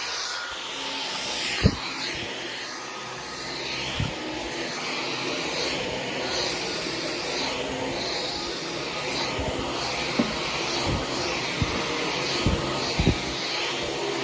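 Dyson V15 Detect cordless stick vacuum running steadily with a thin high whine, its noise swelling and easing about once a second as it is pushed back and forth. A few short knocks of the cleaner head against furniture or the floor come through, the sharpest around the start and near the end.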